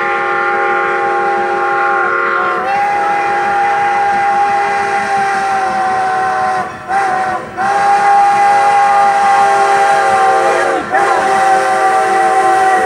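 Strasburg Rail Road #90, a 2-10-0 Decapod steam locomotive, blowing its steam whistle for a grade crossing: long, long, short, long, with the last blast drawn out past a brief break. This is the standard grade-crossing whistle signal.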